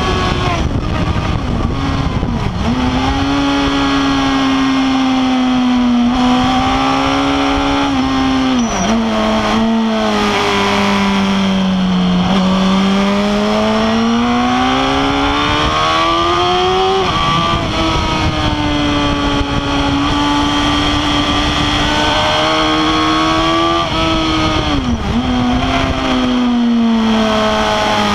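Suzuki GSX-R 1000 K8's inline-four engine running hard at high revs. Its pitch sinks into the corners, climbs steadily as the throttle opens, and drops sharply a few times.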